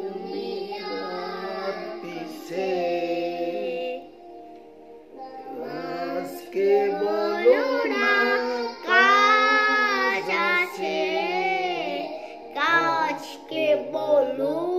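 A young boy and a man singing a Bengali gojol (Islamic devotional song) together, with long held and gliding notes. There is a short break about four seconds in.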